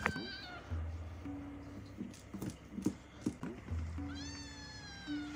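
A cat's long, drawn-out meow starts about four seconds in, and an earlier one trails off in the first half-second, over background music with held low notes.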